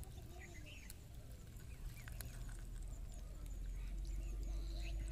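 Outdoor riverside ambience: a steady low rumble, getting stronger after about two seconds, with scattered short bird chirps and faint distant voices.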